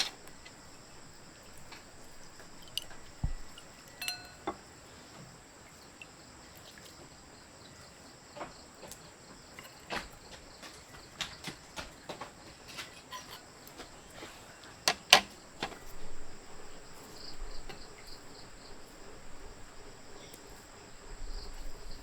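Insects chirring as a steady high-pitched tone, with scattered light clicks and knocks; the loudest knock comes about fifteen seconds in.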